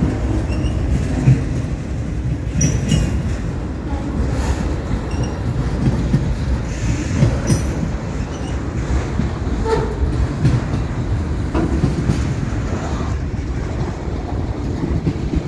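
Autorack freight cars rolling past at close range: a steady rumble of steel wheels on rail with a clickety-clack over the rail joints, and a few brief high squeals from the wheels.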